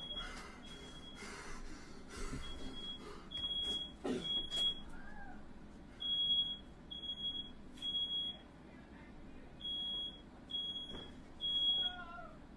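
Household smoke alarm sounding: a high-pitched beep repeated in groups of about three with short pauses, set off by smoke from a firework that went off indoors. A couple of knocks break in partway through.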